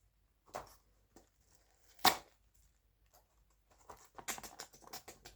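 A blind-bag package being handled and crinkled: a few light rustles, one sharp crackle about two seconds in, then rapid crinkling from about four seconds in.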